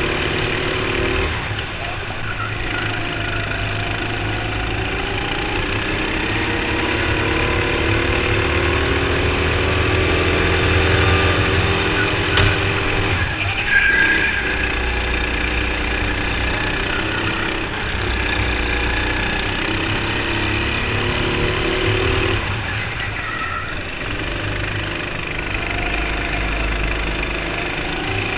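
Go-kart engine heard from the driver's seat, its pitch climbing steadily along the straights and dropping sharply each time the throttle is lifted for a corner, three times over.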